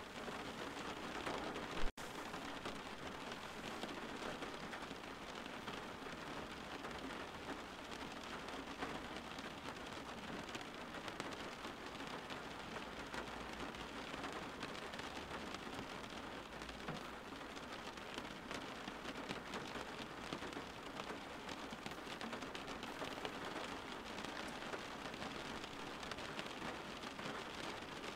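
Steady rain falling, an even hiss of many drops, with no thunder. A brief click with a momentary dropout about two seconds in.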